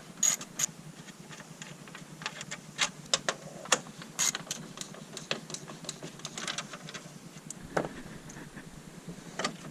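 Hand ratchet and socket working on the power steering pump's mounting bolts: irregular clicks and light metal clinks, with a few sharper knocks in the first second and again near the end.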